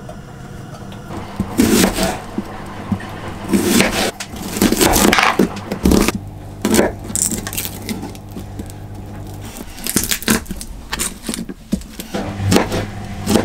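Kitchen knife chopping a red onion on a plastic chopping board: irregular runs of short knocks and scrapes as the blade meets the board, over a low steady hum.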